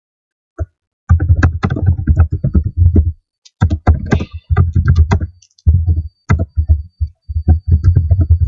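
Fast typing on a computer keyboard close to the microphone. Each keystroke is a dull thud with a click, in quick uneven runs broken by short pauses.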